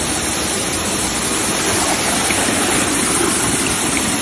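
Rushing water of a waterfall, a loud, steady roar of noise with no breaks.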